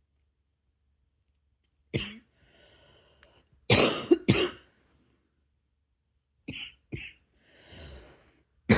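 A person coughing in separate bouts: a single cough about two seconds in, then two loud coughs close together, then two lighter ones, and a breath drawn in before another loud cough at the end.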